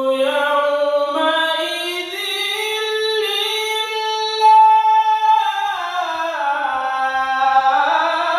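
Unaccompanied Quran recitation (tajweed) by a man in maqam Sika: one long unbroken melismatic phrase that climbs steadily in pitch, holds a high note in the middle, then slides back down to the starting pitch near the end.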